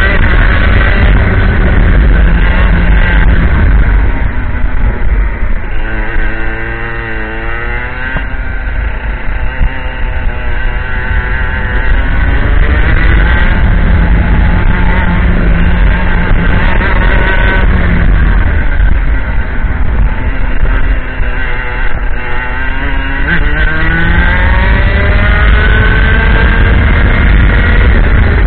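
IAME X30 125cc two-stroke kart engine at racing speed, revs climbing on the straights and dropping twice under braking, about a quarter of the way in and again about three quarters in, then rising steadily near the end toward about 14,000 rpm.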